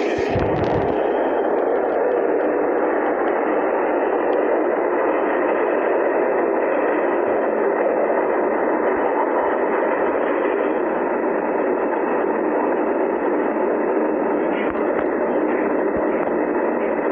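New York City Subway train running past, heard as a steady, muffled rush of noise re-recorded off computer speakers, with a brief low thump near the start.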